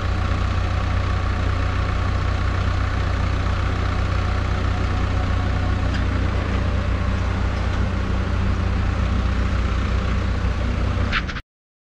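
Flatbed tow truck's engine idling steadily, with a low, even rumble; it cuts off suddenly near the end.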